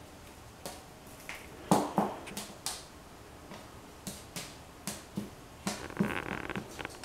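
A kitten playing with a toy mouse against a wooden panel: scattered light taps and knocks, the loudest two close together about two seconds in, then a brief scratching of claws about six seconds in as it paws under the panel.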